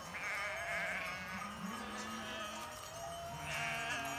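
A flock of sheep bleating, with wavering calls: a long one at the start and another near the end.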